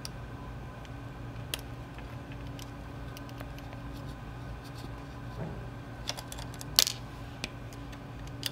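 Hex key turning small machine screws under a 3D printer's aluminium extruder plate: sparse light metallic clicks and ticks, with one louder clink near the end, over a steady low hum.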